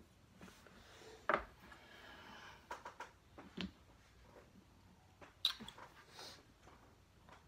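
Wooden Jenga blocks being tapped and pushed out of the tower: a few faint, scattered clicks and knocks, the sharpest about a second and a half in.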